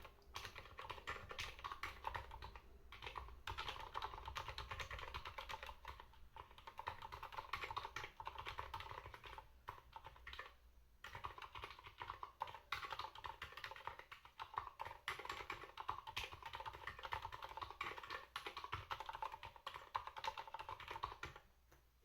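Fast, continuous typing on an ErgoDox EZ split mechanical keyboard with Silent Red linear switches: a dense patter of soft, damped keystrokes, broken by a few brief pauses and stopping just before the end.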